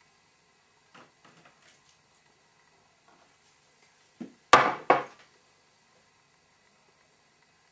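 Containers being handled on a tabletop: a few faint clicks, then about halfway through a short knock followed by two sharp clunks, as a glass cup is set down beside a plastic tub.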